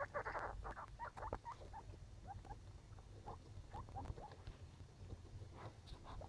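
Baby skinny pigs (hairless guinea pigs) giving a string of short, soft squeaks while shuffling over wood-shaving bedding, with a burst of rustling in the shavings at the start.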